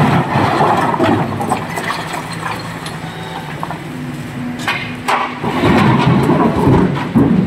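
SANY SY225 hydraulic excavator's diesel engine working hard as the loaded bucket swings up over the dump truck, settling to a steadier hum. From about two-thirds of the way through, the bucket empties and rock crashes into the dump truck's body with loud, rough clattering and knocks.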